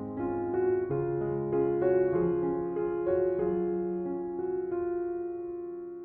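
Background music played on piano, a melody of sustained notes.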